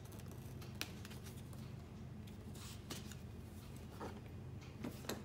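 Box cutter slitting the seal on a cardboard phone box, with the box then handled: a few short scrapes and clicks over a low steady hum.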